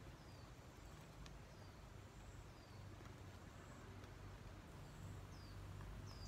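Near silence with faint bird calls: short, high, falling chirps about once a second, a little louder near the end, over a low steady hum.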